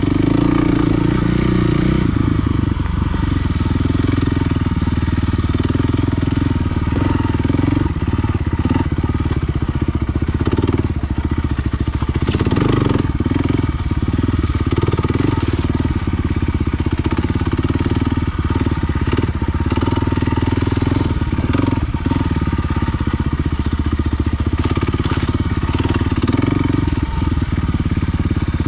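Kawasaki KLX 300R's single-cylinder four-stroke engine running steadily and loudly as the dirt bike is ridden.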